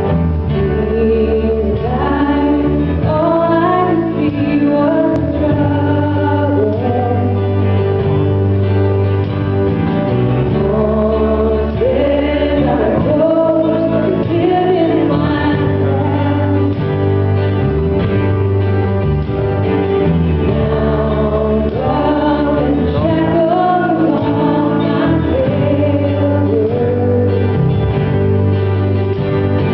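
Choir singing a gospel song, with steady held low notes underneath.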